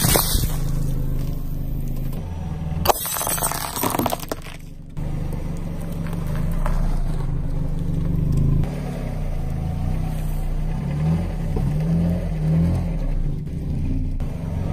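Car engine running slowly while a tyre rolls over and crushes brittle objects, with crackling crunches at the start and again about three seconds in.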